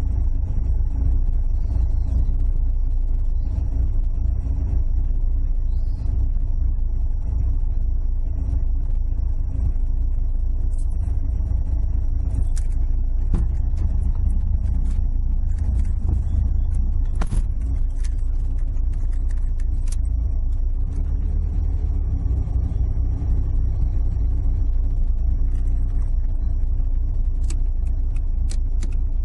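Toyota AE86's 4A-G twin-cam four-cylinder engine idling steadily, heard from inside the cabin of the parked car. Scattered light clicks come through in the middle and near the end.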